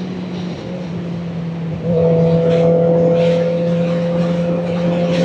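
Kawasaki Ninja ZX-4RR's inline-four engine running at a steady cruise, with its note holding steady and getting louder about two seconds in.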